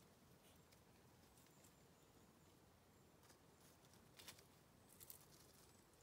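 Near silence, broken by a few faint crackles and rustles of dry leaves and twigs, about four and then five seconds in.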